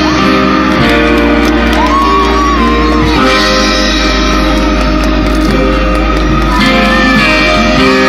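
Live band music heard from the crowd through a large outdoor sound system: a saxophone solo with a lead line that slides and bends in pitch over guitar, bass and drums.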